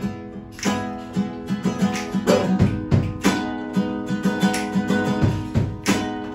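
Two acoustic guitars playing live, strummed chords and plucked notes in a steady rhythm, with no singing.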